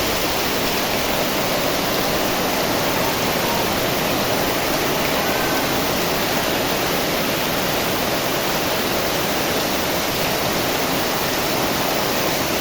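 Steady, unbroken rush of a heavy tropical downpour together with flowing floodwater.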